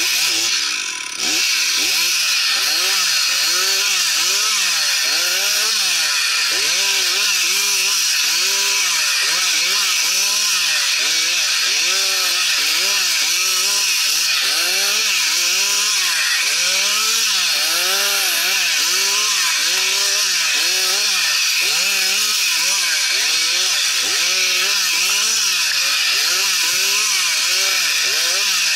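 Two-stroke chainsaw cutting through spruce wood, its engine pitch rising and falling about once a second as it bogs under load and picks up again, with a brief dip about a second in. The chain is blunt.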